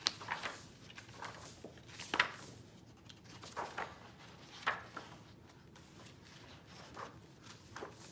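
Pages of a hardcover book being turned and handled: a string of short papery swishes and light taps, the clearest about two and four and a half seconds in.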